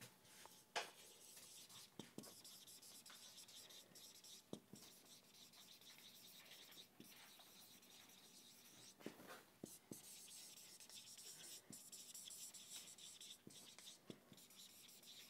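Faint scratching of a marker pen writing on a whiteboard, in stretches of strokes with a few light taps between them.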